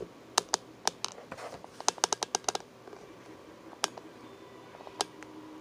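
Handling noise from the camera being adjusted: a series of sharp, typing-like clicks and taps, with a quick run of them about two seconds in and a few single clicks after.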